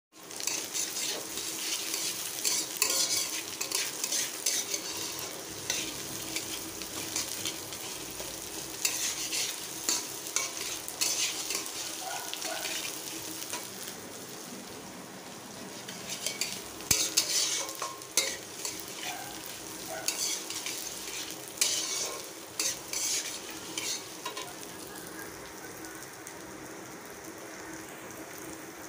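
Potato cubes and lentils frying in oil in a metal kadai, sizzling steadily, while a metal spatula stirs and scrapes them against the pan in repeated bursts.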